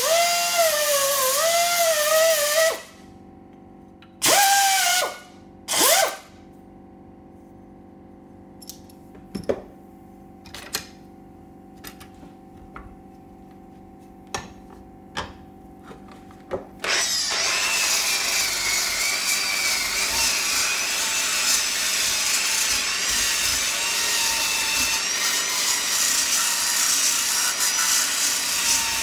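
Hand drill with a flap disc grinding plasma-cutting marks off the edge of a steel spoke, the motor whine wavering under load. It stops about three seconds in and gives two short bursts. A quiet stretch follows with light clicks and knocks of metal on metal, then steady grinding starts again about two-thirds of the way through.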